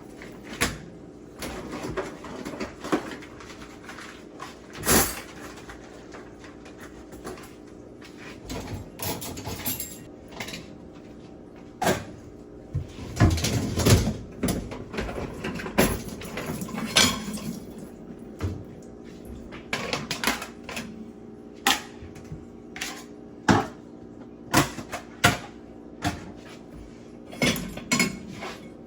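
Dishes, pans and cutlery clattering and cupboard doors knocking open and shut as kitchen dishes are washed and put away, in a run of irregular sharp knocks with a busier stretch about halfway through, over a steady low hum.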